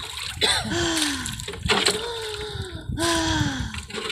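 Choppy seawater splashing and sloshing against a small fishing boat, with a low rumble underneath. Three short falling tones, like a voice, sound over it at about half a second, two seconds and three seconds in.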